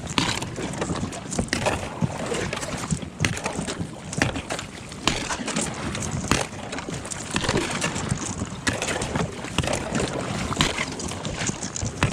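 Thin lake ice being broken by a paddle and an inflatable packraft pushing through it: a dense run of sharp, irregular cracking and crunching clicks and knocks.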